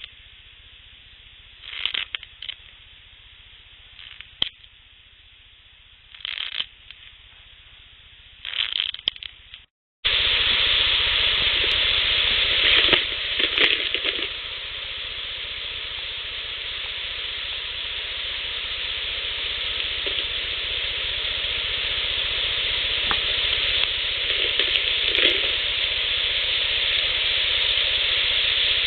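Outdoor field recording of scratching sounds in short bursts about every two seconds, which the recordist attributes to a Sasquatch. It cuts out briefly, then gives way to a loud steady hiss with a few faint rustles and knocks, which the recordist takes for an animal handling things.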